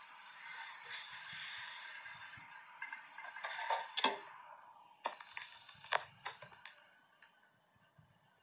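Hushed room tone with a steady hiss and a few scattered small clicks and knocks, the loudest cluster about four seconds in.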